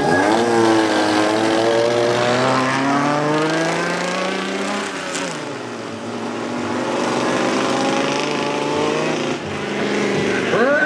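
Honda Civic hatchback's four-cylinder engine launching and accelerating hard, its pitch rising steadily, then dropping at an upshift about five seconds in and climbing again as the car pulls away.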